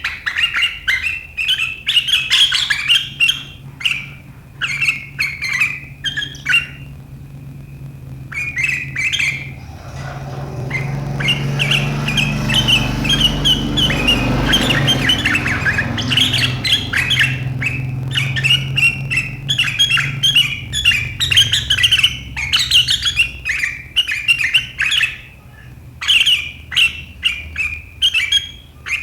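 Sooty-headed bulbul (kutilang) chattering in rapid, sharp runs of short notes, the 'riwikan' call, with brief pauses. A low rumble swells under the calls about a third of the way in and fades a few seconds later.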